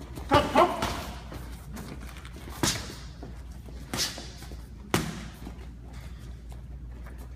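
Boxing gloves smacking as punches land during sparring: two quick hits near the start, then single sharp smacks spread over the next few seconds.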